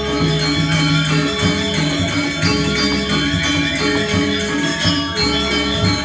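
Balinese gamelan orchestra playing live: layered ringing bronze metallophone notes in a fast repeating rhythm, with a barrel drum and a bright jangle of small cymbals.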